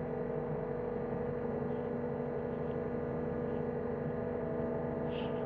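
John Deere 325G compact track loader's diesel engine running at a steady speed, a constant drone with a steady hum.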